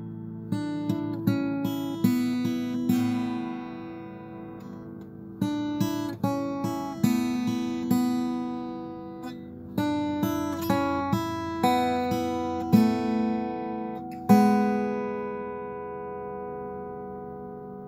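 Background acoustic guitar music: notes picked one after another in a gentle, unhurried line, each ringing and fading, with a couple of fuller chords struck near the end and left to ring out.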